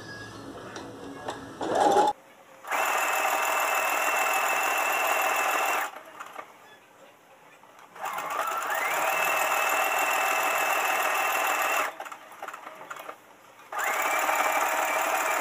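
Brother FS101 computerized sewing machine stitching a zigzag in three runs of a few seconds each, stopping between them. Its motor speeds up audibly at the start of the second and third runs. A brief loud thump comes just before the first run.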